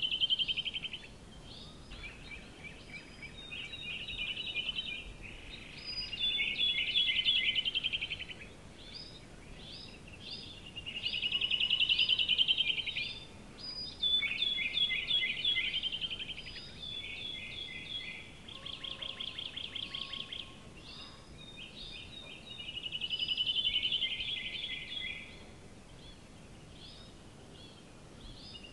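Bird song: a series of high-pitched, rapidly trilled phrases, each lasting one to two seconds with short pauses between, some louder than others.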